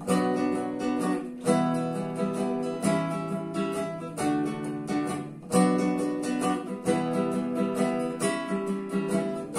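Nylon-string classical guitar played solo, chords strummed and plucked, with a strong stroke about every second and a half and lighter strums between.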